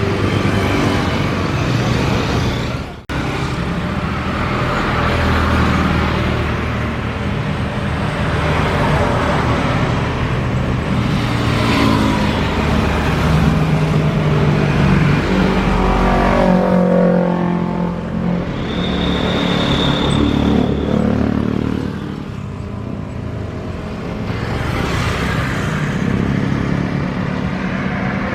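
Continuous road traffic noise: cars and motorbikes running and passing by, with engine hums rising and fading in turn. The sound drops out sharply for a moment about three seconds in.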